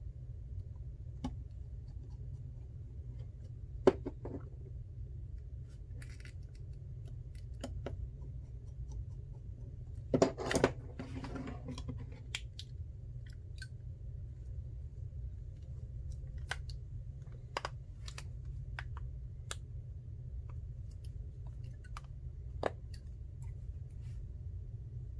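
Scattered small clicks and taps of tools and phone parts being handled on a work surface during an iPhone repair, with a short scraping rustle about ten seconds in, over a steady low hum.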